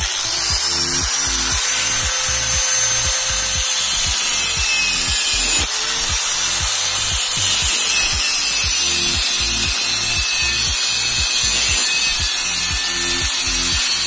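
Electric angle grinder with a cut-off disc cutting into a metal chain sprocket: a steady, loud high-pitched grinding hiss with a rising whine as the motor spins up at the start. The grinding dips briefly about six seconds in, then picks up again. Background music with a steady beat plays underneath.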